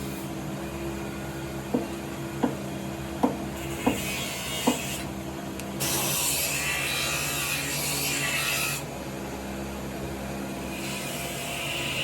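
Hand work on a rabab's wooden body: five light knocks on wood, then long stretches of scraping and rubbing on the wood, over a steady low hum.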